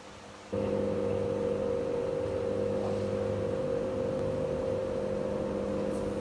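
Electric roller shutter motor humming steadily as the shutter rolls up, starting about half a second in.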